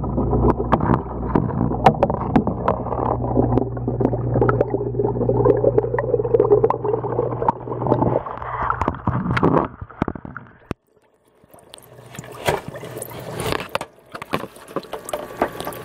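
Goldfish tank heard from underwater: a steady low hum from the aquarium's equipment, with bubbling and clicks, all muffled by the water. Just after ten seconds it cuts out briefly, then returns as splashing water at the surface.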